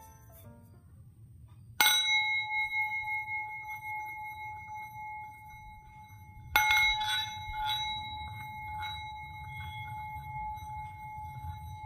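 Metal singing bowl struck twice with a mallet, about two seconds in and again about five seconds later. Each strike rings on as a steady tone with several higher overtones.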